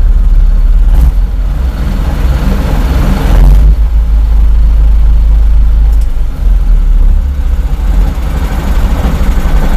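Vehicle engine running with the revs raised above idle, so the knock it makes at idle, near the driveshaft between engine and gearbox, has stopped.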